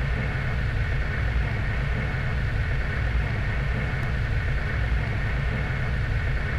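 Opening of a 1990s techno track: a steady, dense synthesized rumbling drone with no beat, cutting in suddenly just before.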